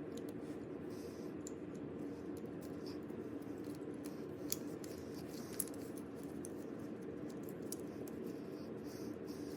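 Puzzle pieces being handled and fitted together, making scattered light clicks and taps, two sharper ones in the middle, over a steady low background hum.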